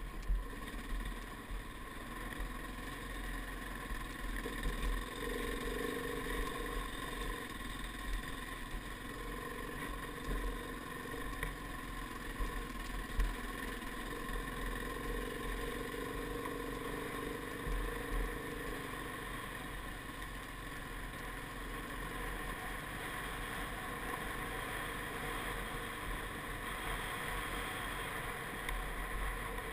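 KTM 690 single-cylinder motorcycle engine running steadily under load on a steep, rocky climb, with a few short knocks. Wind buffets the helmet-mounted microphone with an uneven low rumble.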